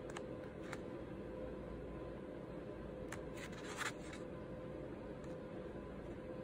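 Pen drawing on paper: faint scratching strokes and light taps of the pen tip, with a short louder run of strokes about three to four seconds in, over a steady faint hum.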